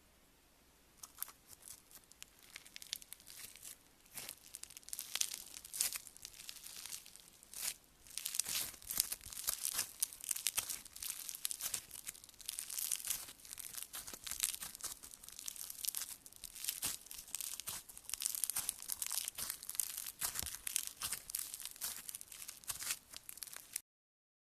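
Slime being squeezed and worked by hand close to the microphone, giving a dense, fast crackling and crunching that starts about a second in and cuts off abruptly near the end.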